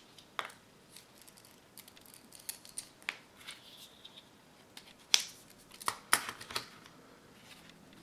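Scattered light clicks and taps from handling a mechanical lead holder and its small plastic lead tubes while its lead is being swapped, about eight in all, the sharpest a little after five and six seconds in.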